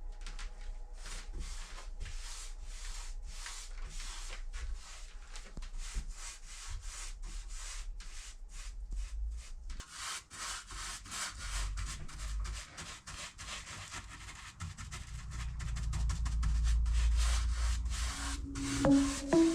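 Repeated hand strokes rubbing across wooden boards, about three a second, growing louder from about halfway through.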